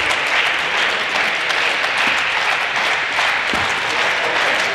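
Audience applauding steadily, cutting off suddenly near the end.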